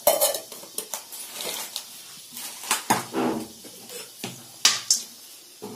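Metal spoon knocking and scraping against an aluminium kadai while whole spices are stirred in the oil: about nine separate clinks, some ringing briefly.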